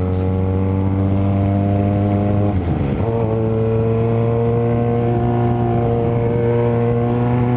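Yamaha XJ6N's 600 cc inline-four with a Power GP2 4-into-1 full exhaust, running at steady revs while riding. The note dips briefly about two and a half seconds in, then holds steady again at a slightly higher pitch.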